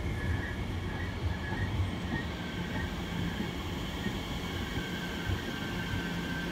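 Electric multiple-unit train moving slowly along the platform: a steady low rumble and hum, with thin high squealing tones from the wheels that keep coming and going.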